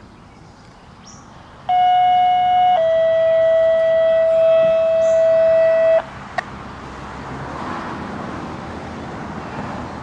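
Two-tone dispatch paging tones over a fire-department radio scanner: a steady tone for about a second, then a slightly lower one held for about three seconds, sent as a test page of the public safety alert monitors. After the tones cut off, a steady radio hiss.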